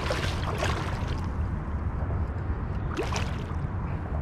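A large flathead catfish splashing at the surface beside the boat while being fought toward the landing net. There is a burst of splashing at the start and another about three seconds in, over a steady low rumble.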